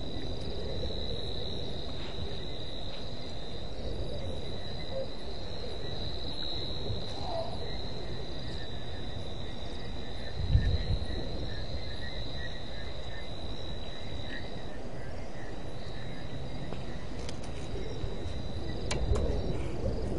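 Night insects trilling in one steady high-pitched note that stops about fifteen seconds in, over a low steady background noise. A brief low thump comes about ten seconds in, and the low noise grows louder near the end.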